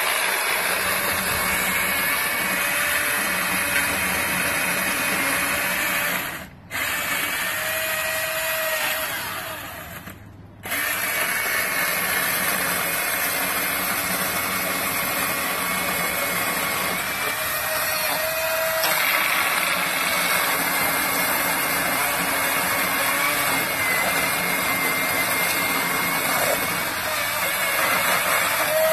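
Milwaukee M18 Fuel 16-inch cordless brushless chainsaw running and cutting into a small tree trunk, a steady electric whine with the chain rattling through the wood. It stops twice, briefly about six seconds in and again for about a second around ten seconds, then runs on, its pitch rising for short moments when the chain runs free.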